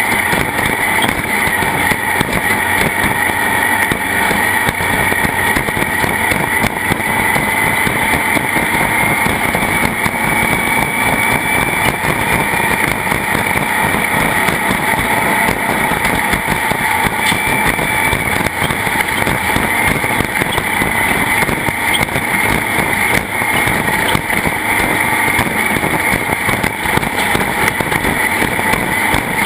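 Racing engine running continuously at high revs under steady load, its pitch creeping up a little about a third of the way through, over a constant rushing noise.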